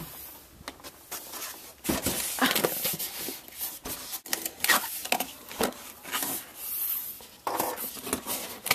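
Cardboard box and plastic film rustling and scraping as a boxed cutting machine is unpacked by hand: irregular crinkles and rubs with a few sharp knocks.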